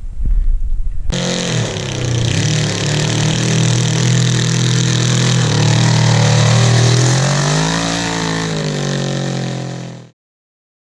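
Kawasaki KZ550 LTD air-cooled inline-four motorcycle engine, fitted in a ride-on lawn mower, running loudly at speed, its pitch wavering and climbing briefly near the end. It comes in suddenly about a second in after a low rumble, and cuts off abruptly shortly before the end.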